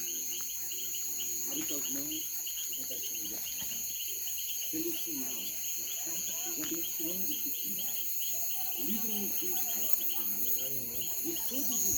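Night insects calling: a steady high-pitched trill together with a fast, evenly pulsed chirping, typical of crickets, with faint voices in the background.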